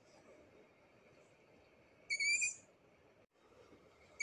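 Owl chick giving a short, high-pitched whistling call about two seconds in, and starting another right at the end.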